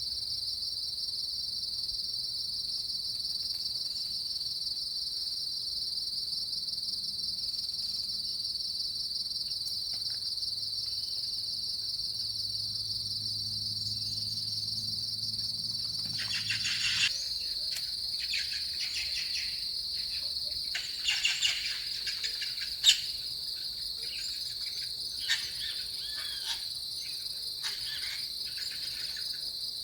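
Steady, high-pitched chorus of insects trilling without a break. From about two-thirds of the way through, short chirping calls and a few sharp clicks come in over it.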